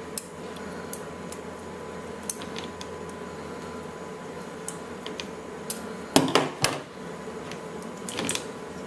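Sewing scissors snipping through a plush toy's fur: scattered small clicks, with a louder cluster of snips about six seconds in and again near eight seconds.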